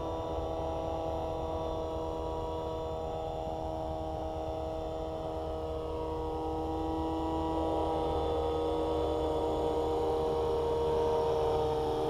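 Electric RC helicopter hovering: the whine of its Scorpion brushless motor and drive gears with the rotor, a steady set of tones over a low rumble. About seven seconds in one tone slides up in pitch, and it grows louder toward the end.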